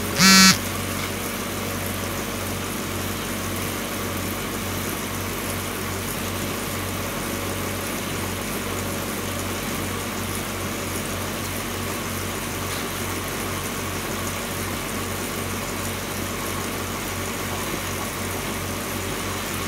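Factory conveyor belt and its drive motor running steadily: a constant mechanical hum with an evenly pulsing low throb. A loud pitched beep sounds right at the start.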